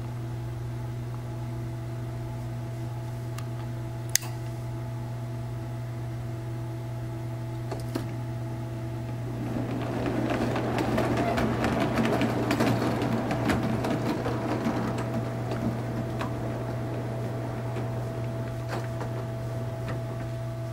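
O gauge model train running: the locomotive's small electric motor whirring over a steady hum, with the wheels of the locomotive and goods wagons clicking over rail joints and points. The rolling noise grows louder about halfway through, then eases off, and there is one sharp click about four seconds in.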